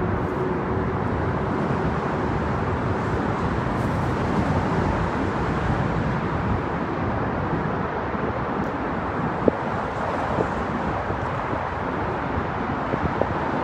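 Steady outdoor city street noise: a continuous rushing hiss of traffic and wind, with a few faint clicks in the second half.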